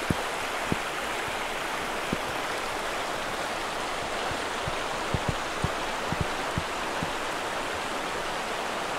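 River water running over stones: a steady rushing, with a few soft low knocks scattered through it.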